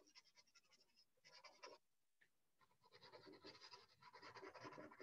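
Faint graphite pencil shading on sketchbook paper: quick, repeated back-and-forth scratchy strokes, with a short pause about two seconds in.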